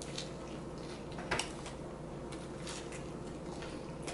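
Two people chewing and eating soft tacos, with faint wet mouth clicks and one sharper click a little over a second in.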